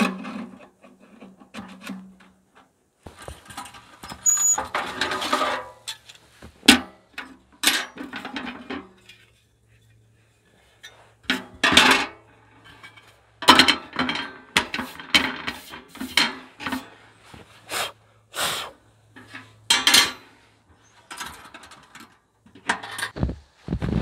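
Camping gear being handled: irregular sharp knocks and clatters with a stretch of scraping, and a short lull about halfway through.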